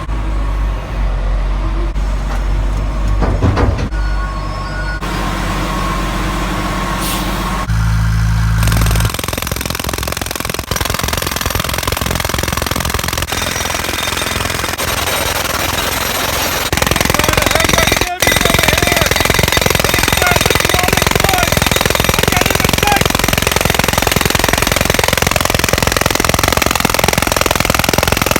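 Heavy work machinery running loudly. A low, steady engine-like hum gives way about nine seconds in to a dense, rattling machine noise with rapid hammering that carries on to the end.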